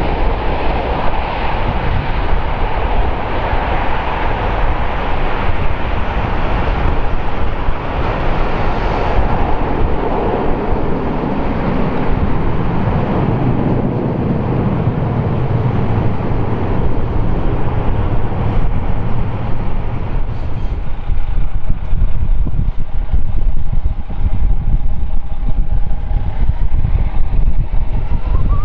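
Boeing 777-300ER's twin GE90-115B turbofans at takeoff thrust through the end of the takeoff roll and the climb-out. A deep rumble is strongest around the middle, then the hiss thins as the jet climbs away. Near the end, a low rumble with a faint steady whine grows louder as the jet comes in on approach.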